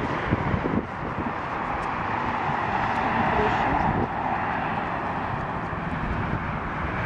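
Steady distant engine noise, swelling a little and easing off about four seconds in.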